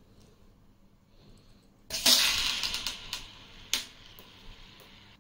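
Metal stick magazine of a CO2 air pistol being handled: faint fiddling, then a sudden clatter about two seconds in that fades over about a second, and a single sharp click a little later.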